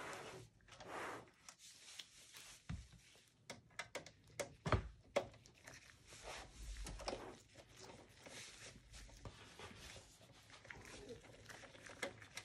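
Handling noises from a Dell Optiplex 7080 small-form-factor PC's opened steel case being turned and worked on: scattered light clicks, knocks and rustling, with one louder knock about five seconds in.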